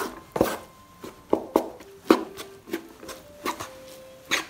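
Rice paddle cutting and turning sushi rice in a wooden sushi tub. It makes a quick, uneven series of short scraping knocks, roughly two a second.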